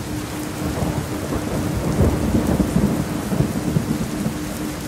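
Steady rain with a low rumble of thunder that swells about two seconds in and dies away near the end. A faint tone pulses on and off underneath throughout.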